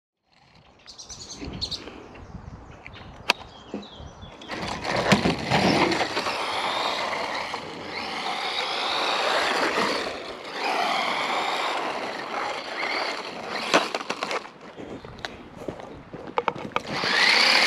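A DEERC RC car's electric motor whining up and down in pitch as the car speeds up and slows, with its tyres rolling over asphalt; a few sharp knocks.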